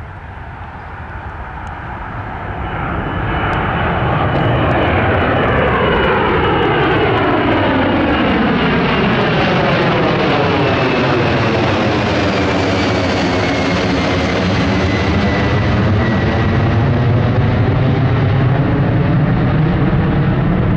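Boeing 767-300ER twin-engine jet airliner climbing out low overhead just after takeoff: the jet roar builds over the first few seconds, then stays loud with a swirling, phasing quality. A high whine slowly falls in pitch as the jet passes and heads away, leaving a deep roar.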